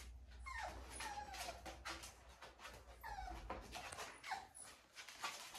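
Seven-week-old American Bully puppy whimpering, several short high whines that slide down in pitch: an unhappy, distressed pup.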